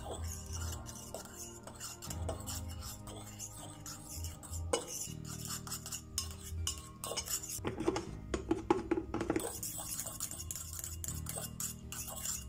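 A thin metal stirrer clinking and scraping against a stainless steel bowl while stirring liquid, with a faster, louder run of clinks about eight seconds in. The hot chamomile infusion is being stirred to dissolve Olivem emulsifier.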